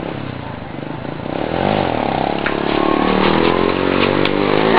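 Small underbone motorcycle engine revving, its pitch swinging up and down, then climbing and getting louder as the front wheel comes up into a wheelie. A few sharp clicks come near the end.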